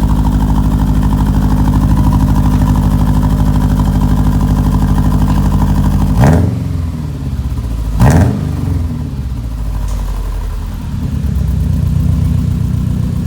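Subaru Impreza's 2.5-litre flat-four running through unequal-length headers and an aftermarket catback with the silencer in, giving a rumble. It idles steadily, is revved sharply twice about six and eight seconds in, and drops back to idle each time.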